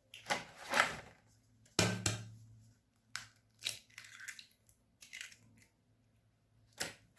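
Eggshells cracking against a bowl and being broken open: a series of sharp cracks and crunches, the loudest about two seconds in.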